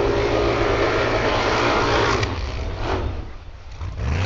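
Formula Offroad buggy's engine running at high revs as it skims across water, under a loud hiss of spray. About two seconds in the sound drops away to a quieter engine note, which starts rising again near the end.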